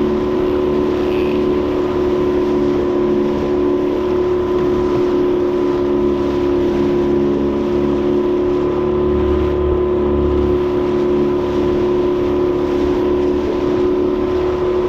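Small fishing boat's motor running steadily at trolling speed, a constant drone with several steady tones.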